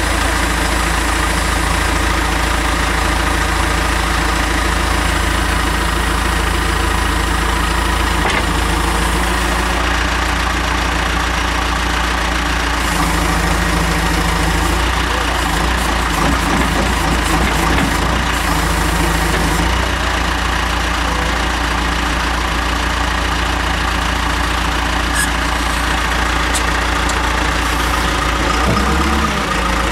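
Backhoe loader's diesel engine running steadily at a low, even speed.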